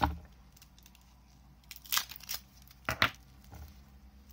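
Small handling noises at a table: a knock at the start, then a few short scrapes and rustles about two and three seconds in, as a battery is picked up and set up for measuring.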